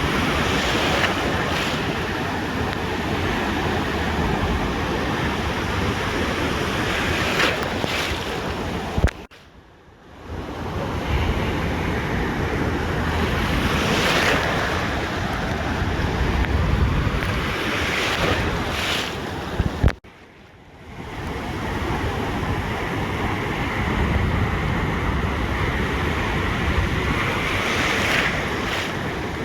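Ocean surf washing onto a beach, with wind buffeting the microphone. The sound breaks off suddenly twice, about 9 and 20 seconds in, and each time fades back in.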